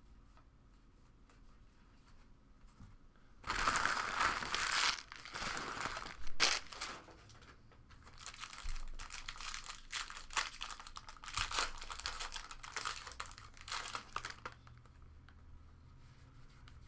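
Trading-card pack wrapper being torn open and crinkled by hand in a series of crackling bursts, starting a few seconds in and dying away near the end.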